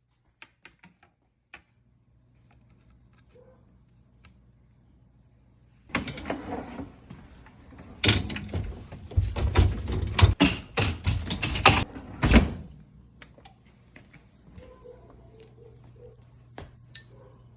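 Dishwasher parts being handled: a few light plastic clicks, then a loud stretch of clattering, knocking and rattling for about six seconds in the middle, then scattered clicks again, over a faint steady low hum.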